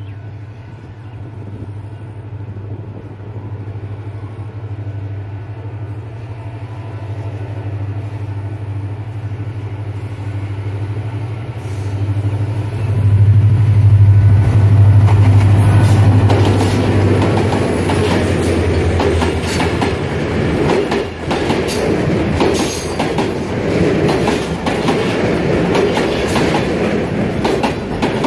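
Diesel-electric locomotive approaching with a steady low engine hum that grows louder, loudest as it passes about halfway through. Then the passenger coaches roll by with a rapid clickety-clack of wheels over the rail joints.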